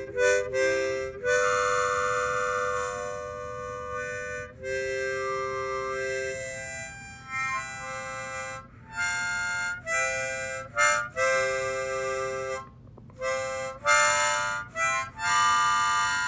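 Background music: a melody of held chords and shorter notes, with brief pauses between phrases.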